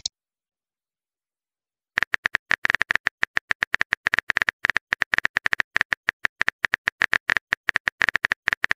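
Phone keyboard typing sound effect: a rapid run of short clicks, about seven a second, one per letter as a text message is typed. It starts about two seconds in.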